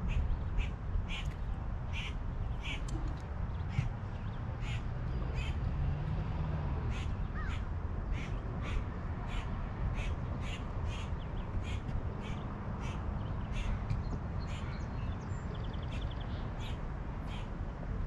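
An animal calling over and over in short sharp notes, about two a second, over a steady low rumble.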